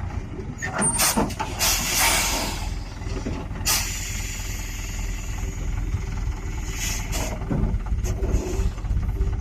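Logging truck's diesel engine running low, with several short bursts of compressed-air hiss from its air brakes: a cluster in the first couple of seconds, a sharp one near four seconds and more around seven seconds.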